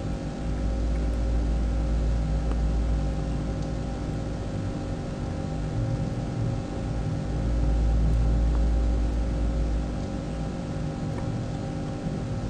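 A steady mechanical hum made of several fixed tones over a deep low rumble; the rumble swells about half a second in and again around eight seconds.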